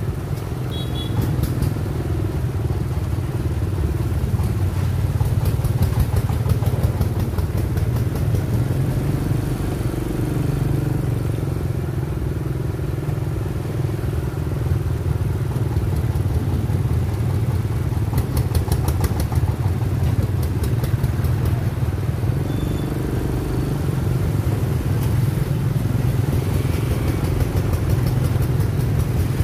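Motorbike engines running at low road speed: a steady low drone with road noise and a light rattle now and then.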